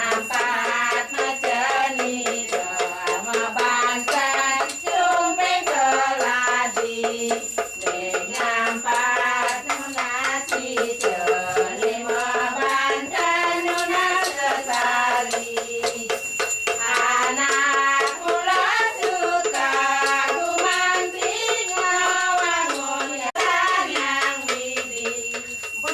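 Music with a continuous, gliding melody.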